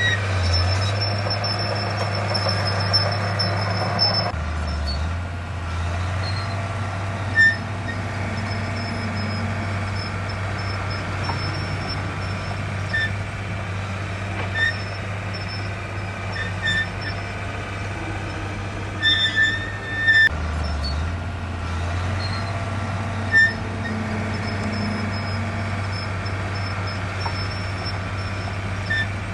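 Heavy diesel earthmoving machinery running steadily, its engine note dropping briefly twice, about four seconds in and again about twenty seconds in, with scattered short metallic squeaks and clanks.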